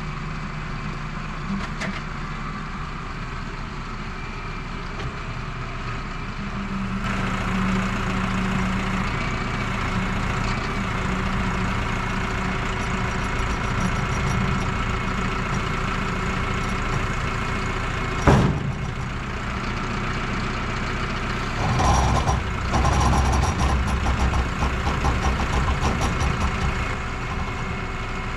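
Tractor diesel engine running under load as its front loader lifts a heavy boom. The engine picks up about seven seconds in. A single sharp clank comes about eighteen seconds in, and there is a louder, uneven stretch of rumbling and knocking near the end.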